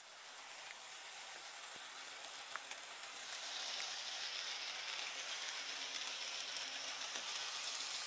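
Graham Farish N gauge class 04 diesel shunter model running round the track with its wagons: the small electric motor's faint whirr and the wheels rolling on the rails, with an occasional light click, growing a little louder about three seconds in as the train passes close.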